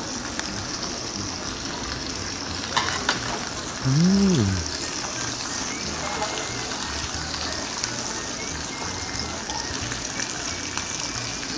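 Frozen pork belly slices sizzling steadily on a hot griddle. About four seconds in there is a short hummed 'mm' that rises and falls.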